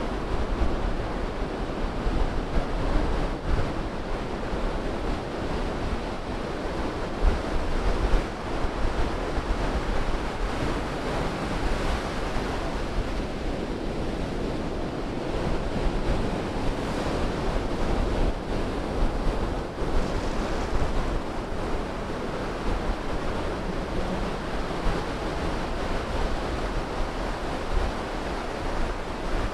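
Ocean surf breaking steadily, with the wash of each wave running up over wet sand, swelling and easing every few seconds.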